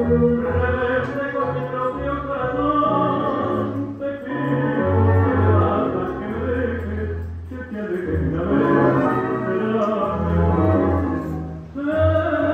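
Tango music from an old recording with its top end cut off, played over the hall's loudspeakers for the dancers. It swells and dips in phrases, with a brief drop in level near the end.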